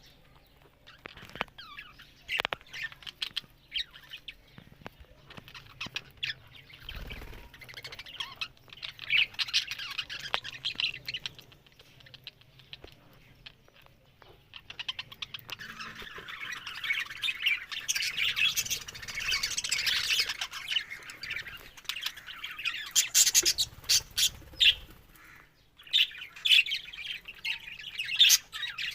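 Budgerigars chattering, with quick chirps and sharp squawks, swelling into a long stretch of dense warbling around the middle.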